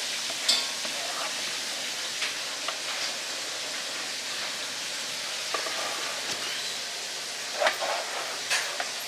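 Chicken frying in hot oil: a steady sizzle, with a few faint knocks of utensils or pans.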